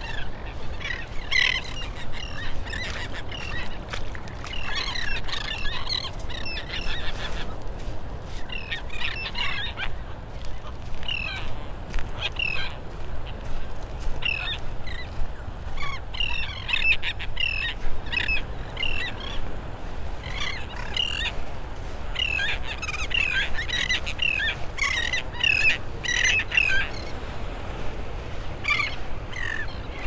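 A large mixed flock of resting shorebirds, mostly terns, calling continuously. Many short calls overlap in dense clusters, with brief thinner spells between them, over a steady low background noise.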